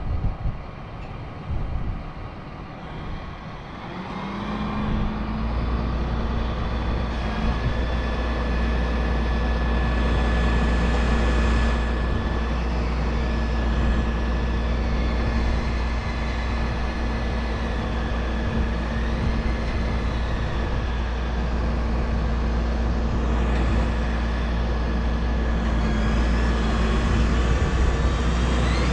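Truck-mounted crane's engine speeding up about four seconds in, then running steadily at raised revs, as it drives the crane for the lift.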